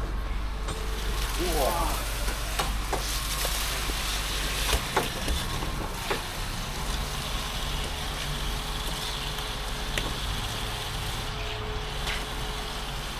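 Concrete pump truck running as a block core fill is pumped: a steady low engine rumble under an even hiss, with scattered clicks and knocks.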